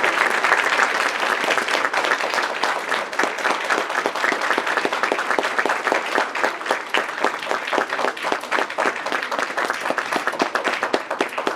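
Audience applauding, the dense clapping thinning out toward the end so that single claps stand out.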